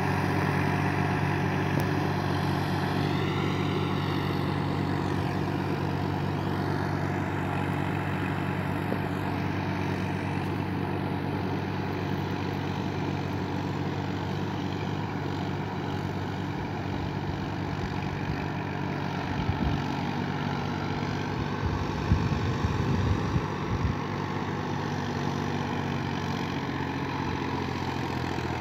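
Massey Ferguson 1035 DI tractor's three-cylinder diesel engine running steadily at an even pitch as the tractor works a flooded paddy field on cage wheels, with a few low thumps about twenty seconds in.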